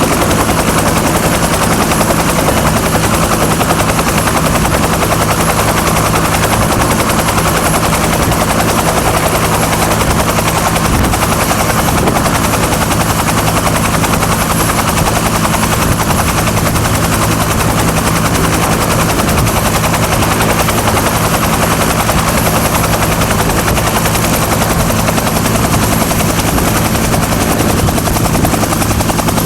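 Bell UH-1 Huey helicopter running on the ground, its turbine engine and main rotor making a steady, even beating with no change in pace.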